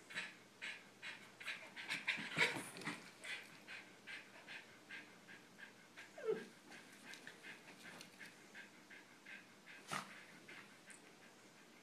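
A small dog panting in quick, even breaths, louder at first and softening. There is a brief falling sound about six seconds in and a sharp click about ten seconds in.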